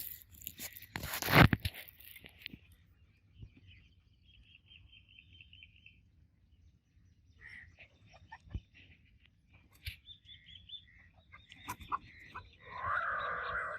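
Small birds chirping, with a short high trill and scattered single chirps. A loud noisy burst comes about a second in, and a louder, fuller bird call comes near the end.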